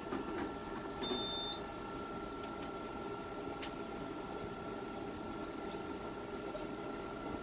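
Candela GentleMax Pro laser running with a steady hum and a steady high tone, and one short high beep about a second in.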